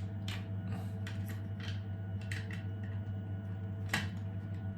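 Small clicks and taps of 3D-printed plastic toy parts being handled and fitted together, with one sharper click about four seconds in, over a steady low hum.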